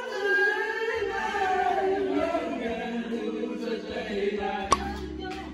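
Two men singing karaoke together into handheld microphones. A single sharp click sounds near the end.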